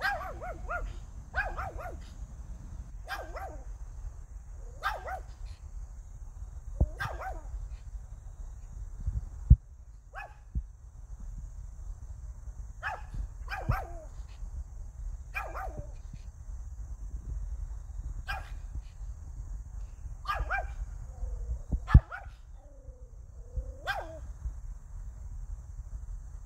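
White Pomeranian barking in short, sharp single yaps, one every second or two, with a few quick doubles, over a low steady wind rumble. Two brief knocks stand out as the loudest moments.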